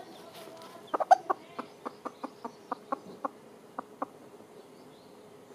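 Domestic hen clucking: a run of about fourteen short clucks over some three seconds, the first few loudest, then spacing out and stopping.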